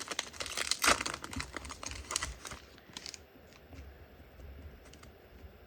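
Crinkling and tearing of a plastic-foil trading-card pack wrapper being opened, dense for about three seconds, then quieter scattered ticks of cards being handled.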